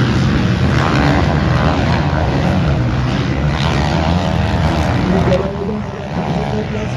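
A pack of motocross bikes racing, their engines revving and wavering up and down in pitch together. The sound is loudest for about the first five seconds, then drops a little as the bikes pull away.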